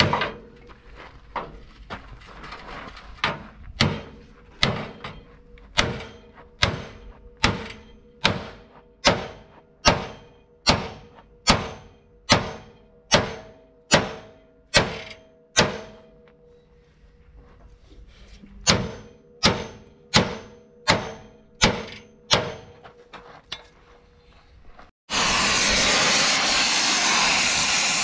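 A hand hammer strikes the steel chassis rail of an accident-damaged Isuzu mini truck in a steady run of blows a little over one a second, each one ringing the frame. The blows pause, then start again. About 25 seconds in, a gas torch starts with a sudden, loud, steady rush of flame, heating the frame rail.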